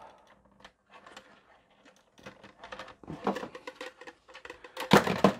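Plastic Lego bricks and Technic parts clicking and rattling as the front section of a Lego module is pried off by hand. The clicks are sparse at first, grow busier after about two seconds, and are loudest near the end, where some extra pieces come away with it.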